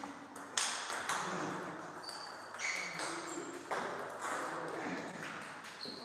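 Table tennis rally: the celluloid-type ball clicks off the bats and the table, about two hits a second, each with a short echo.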